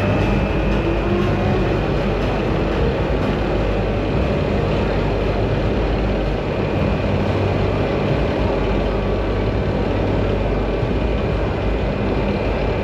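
Steady mechanical drone of a Mack hyper coaster's lift hill hauling a train up, under the chatter of a crowd.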